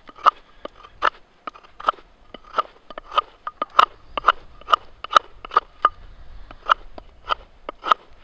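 Fixed-blade knife whittling a wooden mallet handle: a quick series of crisp crunching cuts, one roughly every half second, each stroke slicing a shaving off the wood.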